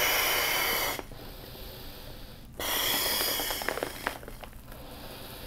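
A man blowing hard by mouth into an aircraft life vest's oral inflation tube, forcing air past the tube's small one-way valve to reinflate the chamber. There are two long, breathy blows: the first ends about a second in, and the second starts about two and a half seconds in and lasts over a second, with a quieter breath between them.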